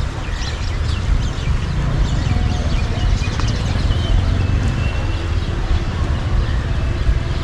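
Steady low rumble of wind on the microphone over the rush of the rain-swollen Bagmati River, with a few short, high bird chirps.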